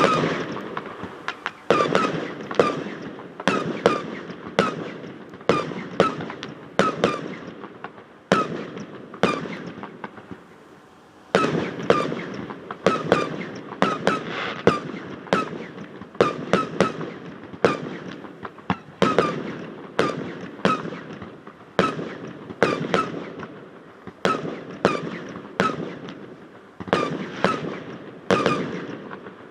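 Fireworks shells bursting in quick succession, about one or two bangs a second with a short lull partway through. Each bang is followed by a ringing tail as it echoes off a metal hangar, which gives the display an odd sound.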